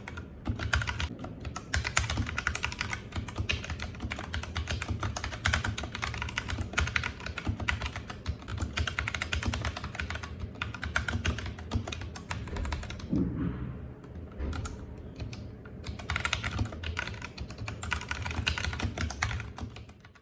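Royal Kludge RK G68 mechanical keyboard with linear red switches being typed on quickly and continuously, a rapid patter of key strokes that thins out briefly about two-thirds of the way through.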